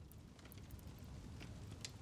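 Faint crackling of a wood fire in a fireplace: a few sharp snaps over a low, steady rumble, the loudest snap near the end.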